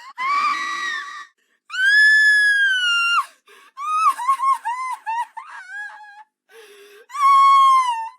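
A string of separate high-pitched human screams with short silent gaps between them: a short scream, then a long held shriek, a run of short broken shrieks, and another long scream near the end.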